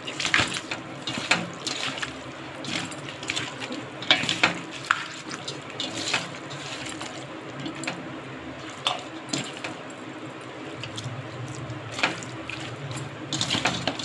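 Raw chicken pieces being mixed by hand with lemon juice and salt in a stainless-steel colander: irregular wet squishing of the meat, with short sharp sounds of pieces and fingers against the metal bowl.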